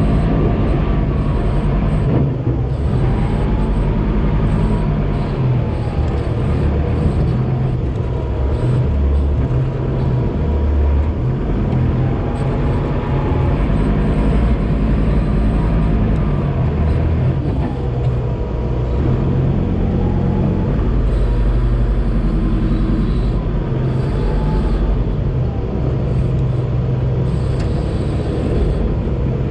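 Engine of a GAZ-69 offroad special running hard under load while driving over rough dirt terrain, heard from the open cab, its note rising and falling repeatedly as the driver works the throttle.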